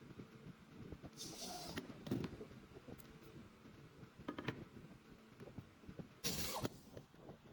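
Workshop handling noises of wood and tools: scattered light knocks and taps, with a short swishing scrape about a second in and another near the end.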